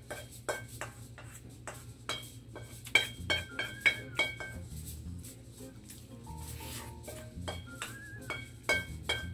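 A spoon clinking and scraping against a metal wok as rice is scooped out of it. The sharp strikes come irregularly, and each leaves a brief metallic ring.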